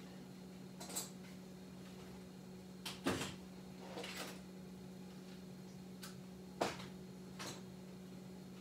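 A handful of short knocks and clatters, like tools and objects being moved about while someone rummages for tools, the sharpest about three seconds in and again near two-thirds of the way through. Under them runs a steady low hum.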